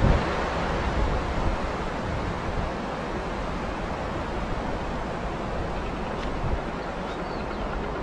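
Steady rush of stream water, with low wind rumble on the microphone, mostly in the first second or two.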